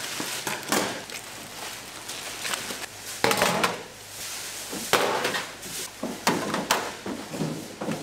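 Irregular knocks and clatter of kitchen work, about a dozen in all, with a longer rushing noise a little after three seconds.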